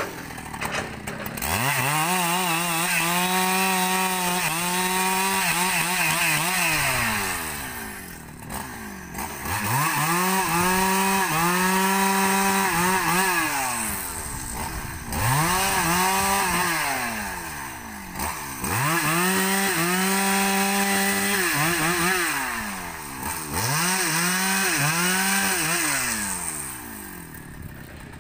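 Husqvarna 395 two-stroke chainsaw revving up to full throttle, holding there for a few seconds, then dropping back to idle, again and again, about six times.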